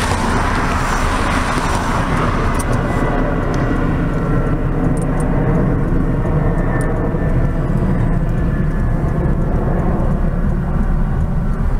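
Steady low rumble of vehicle noise heard from inside a car, with a brighter hiss in the first couple of seconds that fades away.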